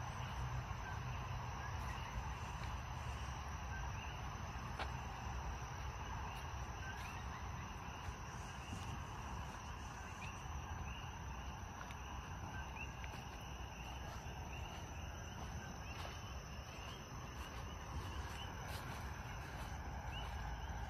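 Outdoor ambience of short, high chirping animal calls repeating every second or so, over a steady low rumble.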